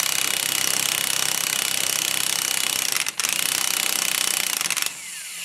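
Impact wrench hammering on a gear puller's forcing screw, pulling a stubborn tapered roller bearing off a Willys Jeep front differential carrier. It rattles in a fast steady stream, breaks off briefly about three seconds in, and stops shortly before the end.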